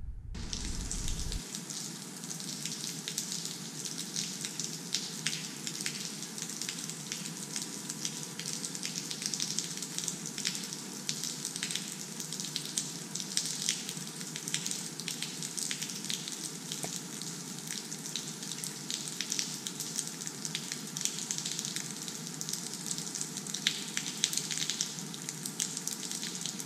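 Water dripping and falling from the roof of a rock cave onto wet rock: a steady patter with many sharp drip splashes.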